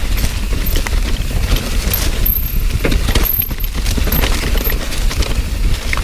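Mountain bike clattering down a rough, rocky trail under wet leaves: a rapid, irregular stream of knocks and rattles as the wheels hit rocks and roots, over a steady low rumble.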